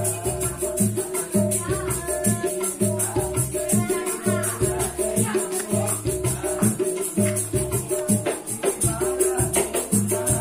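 Street buskers playing a melodica and hand percussion: held melodica notes over a steady, even drum beat.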